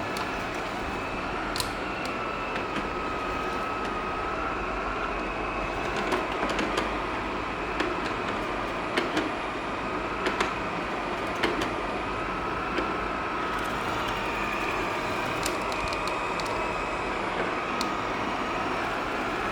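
Xiaomi Robot Vacuum E10 running, a steady motor hum with a high whine that wavers slightly in pitch. Scattered sharp clicks sound over it.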